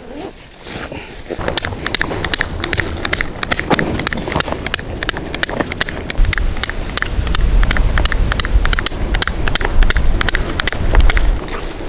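Strong gusty wind buffeting the microphone, with a heavy low rumble from about halfway through until near the end. Over it runs a rapid, irregular clatter of sharp clicks and rattles.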